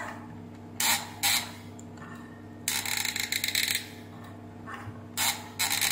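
Hands handling a plastic steam iron and its cord: two sharp clicks about a second in, a rough scraping rub near the middle, and a few more clicks near the end, over a steady low hum.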